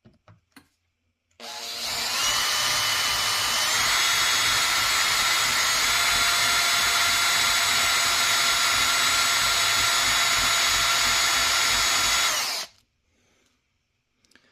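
Cordless drill with a high-speed steel bit cutting a set-screw dimple into the steel of an FN 18-inch AR-15 barrel through a dimple jig. A steady whine starts about a second and a half in, steps up in pitch around four seconds, and cuts off abruptly near the end, after about eleven seconds of drilling.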